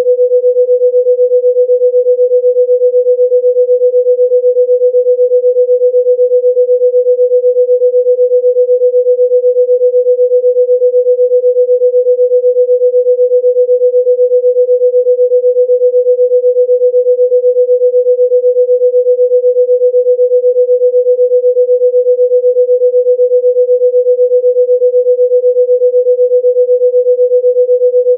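A single steady electronic pure tone of about 500 Hz, played as a healing-sound tone, held at one pitch throughout with a slight regular pulse in its level.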